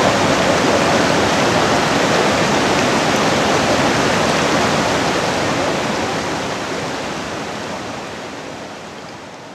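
Mountain stream rushing over a rocky bed: a steady rush of water that fades out over the last few seconds.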